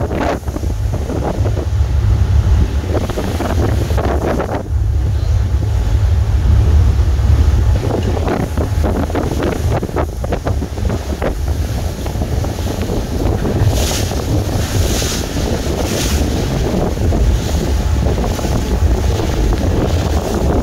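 Wind buffeting the microphone over the wash of water and the running of a passing TurboJET high-speed catamaran ferry, with a few sharper hissing gusts about two-thirds through.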